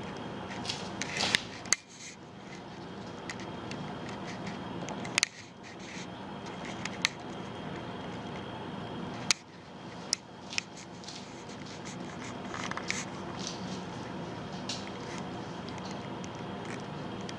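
Steady hum of indoor room noise, broken by scattered sharp clicks and taps every second or so, a few of them much louder than the rest.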